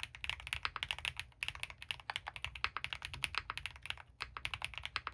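Fast typing on a mechanical keyboard with lubed Gateron Baby Raccoon linear switches and GMK keycaps on a polycarbonate plate: a rapid, continuous stream of keystrokes, with two brief pauses.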